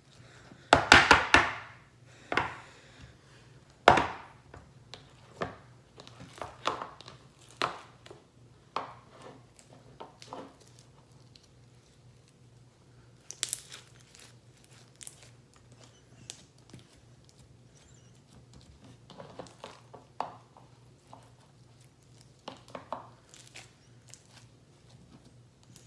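Slime mixed with sugar beads being pressed and pushed into a plastic container: irregular crunching, crinkling and small knocks. The loudest come about a second in and about four seconds in, with quieter ones scattered through the rest.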